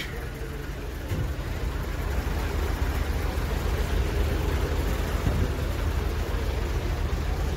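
Steady low rumble of heavy vehicle engines idling, with a faint hiss of street noise over it.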